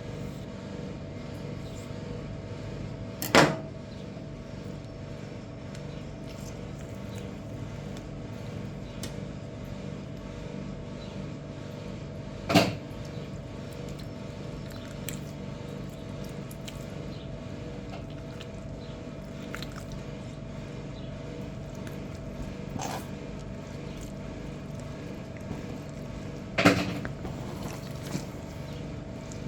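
A steady mechanical hum throughout, broken by four sharp knocks spaced several seconds apart, three of them loud.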